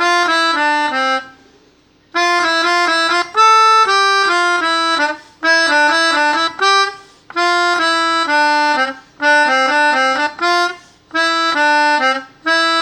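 Melodica (pianika) playing telolet bus-horn tunes: a string of short phrases of a few notes each, broken by brief pauses.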